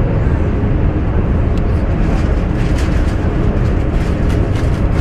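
Steady low rumble of a shooting range's background noise, with a few faint clicks and no loud gunshot.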